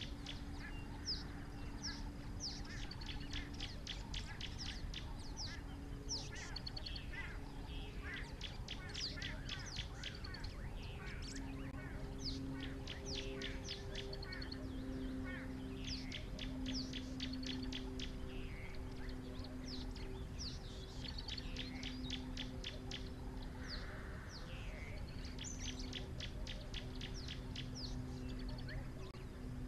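Wild birds chirping and trilling, many calls overlapping in fast runs of short high notes. Underneath is a low steady hum.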